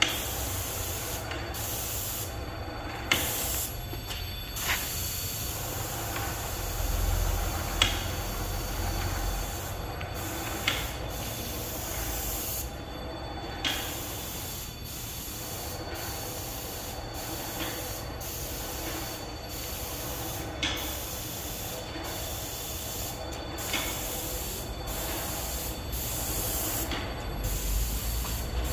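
Airless paint sprayer with a 211 tip spraying paint onto a metal railing: a steady spray hiss that cuts out and restarts briefly many times between passes. A few sharp clicks are heard along the way.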